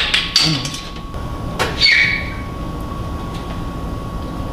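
A few metal knocks and one ringing metal clink about two seconds in, from an engine hanging on a shop engine hoist as it is guided into a truck's engine bay, over a steady low hum.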